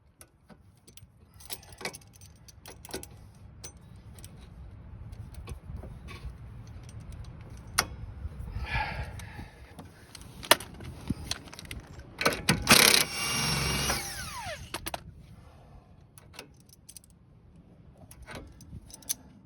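Hand tools working a stuck rear sway bar link: scattered metallic clicks and clinks of pliers and wrench on the link, a short scraping stretch, and a louder metal clatter about two-thirds of the way through.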